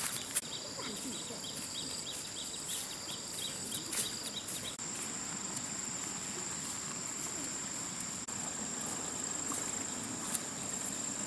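Insects trilling in one steady high-pitched tone that grows stronger about five seconds in, with scattered sharp clicks and taps, most of them in the first few seconds.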